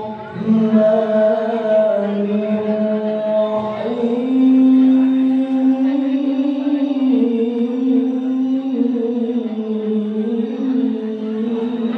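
A man's solo Quran recitation in the melodic qori style, holding long notes of two to three seconds that step and slide between pitches. He sings into a microphone and is heard through a PA loudspeaker system.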